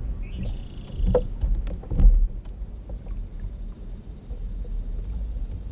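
A few knocks on a plastic fishing kayak, the loudest about two seconds in, over water and wind noise on the microphone. A brief, faint high-pitched whine sounds near the start.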